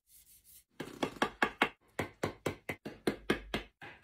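A hand-held blade chopping into a green wooden stick, rapid sharp strikes at about five or six a second, starting about a second in.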